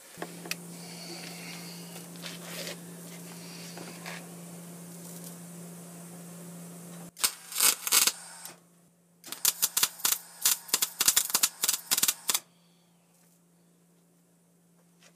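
Wire-feed welder tack-welding steel: a steady hum, then a short burst of arc crackle about seven seconds in, followed by a run of several short crackling tacks over the next few seconds.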